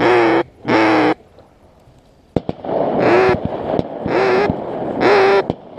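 A duck call blown close by: two loud quacks, a pause broken by a sharp click, then three more quacks over a rustling noise.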